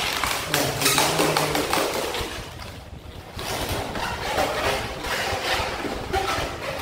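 Inflated latex modelling balloon being twisted and bent between the hands: rubber rubbing and squeaking, with a scratchy, uneven texture and a brief lull near the middle.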